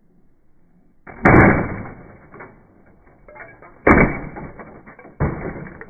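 A laptop crashing onto a tarmac path after a drop from an upstairs window: a loud impact about a second in and a second loud impact just before four seconds, each with a short rattling tail, followed by a rougher clatter near the end.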